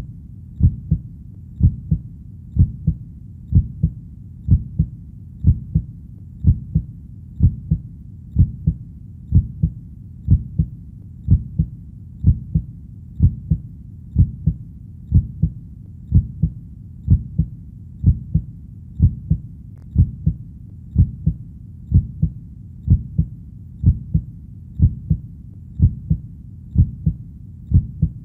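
Heartbeat, a slow steady lub-dub: pairs of low, dull thuds about once a second, keeping an even rhythm.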